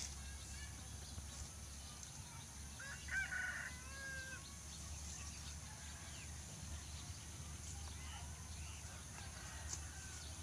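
A rooster crows once, about three seconds in, over a steady low hum, with a few fainter bird calls later on.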